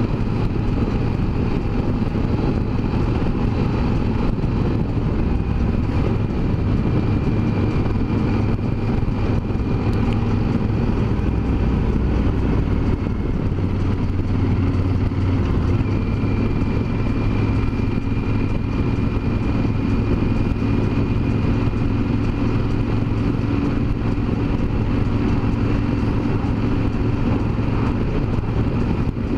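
Yamaha Super Ténéré 1200 motorcycle's parallel-twin engine running at a steady cruise, with wind and road noise over the bike-mounted microphone.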